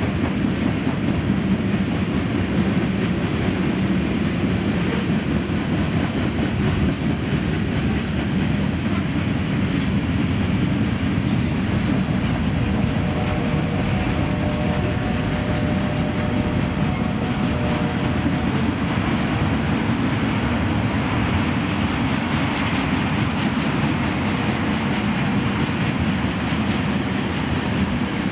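Loaded freight cars (covered hoppers, then tank cars) rolling past on steel wheels, a steady rolling noise from the wheels on the rails. A faint whine comes in for a few seconds around the middle.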